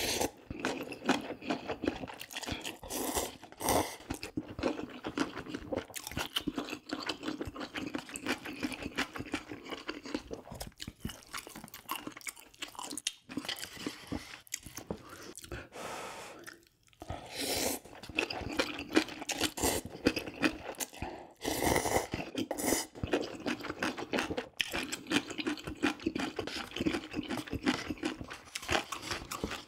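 Close-up chewing of a mouthful of gimbap and spicy ramyun noodles: a steady run of crunching, wet chewing sounds that stops briefly a few times.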